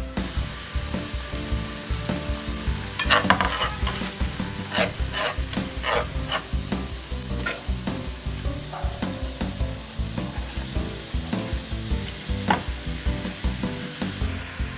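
Sliced onions sizzling in oil in a frying pan, stirred with a wooden spatula that knocks and scrapes against the pan in a quick run of strokes about three to six seconds in and once more later.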